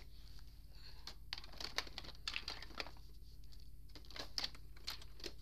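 Irregular rustling, scraping and clicking of handling noise as toy horses are moved about over carpet, with no steady tone.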